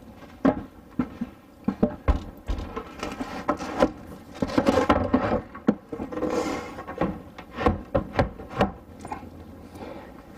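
Dinette table and its telescoping stand being raised, lowered and repositioned by hand: repeated sharp knocks and clicks with scraping and rubbing, busiest in the middle.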